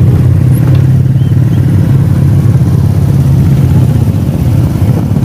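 Honda C70 step-through motorcycle's small four-stroke single-cylinder engine running steadily under way, a constant low drone.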